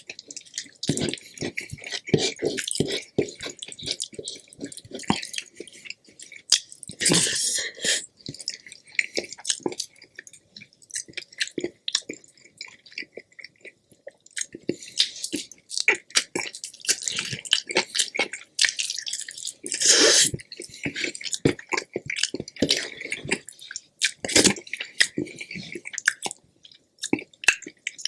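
Close-miked eating sounds: wet chewing and mouth clicks, irregular, with a few louder bursts.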